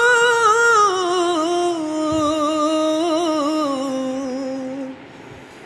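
A song playing: a singer's voice holds one long note with vibrato that steps down in pitch and fades out near the end.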